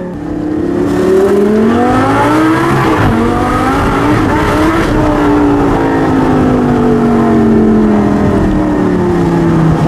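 Lamborghini Gallardo LP560-4's V10 through an Armytrix aftermarket exhaust, heard from inside the cabin: the engine pulls up through the revs with a short dip in pitch about three seconds in, then eases off, its pitch falling slowly as the car slows.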